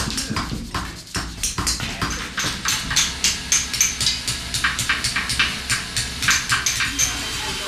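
Hammers striking steel chisels on stone, several sculptors carving at once: a quick, irregular run of sharp, ringing taps, about three or four a second, growing busier about two seconds in.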